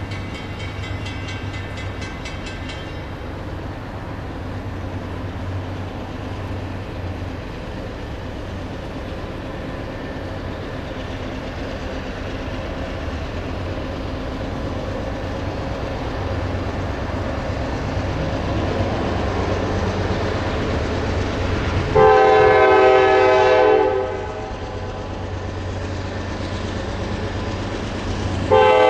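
Approaching Norfolk Southern freight train: a low diesel-locomotive rumble slowly growing louder, then the locomotive's air horn sounding one blast of about two seconds roughly 22 seconds in, and another blast starting near the end.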